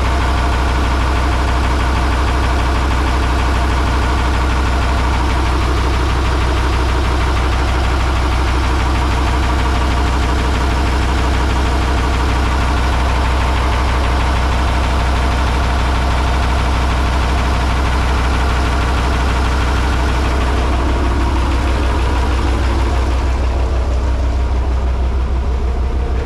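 Boat's Nissan Diesel V-type diesel engine idling steadily, with a deep hum and a dense diesel clatter; the clatter thins out a little near the end.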